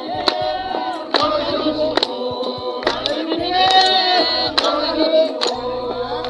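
A group of voices singing together over a steady beat of sharp strokes, about two a second.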